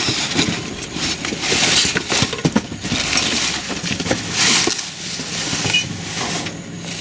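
Trash being rummaged through: plastic bags and packaging rustling and crunching, with scattered clicks and knocks of items being moved.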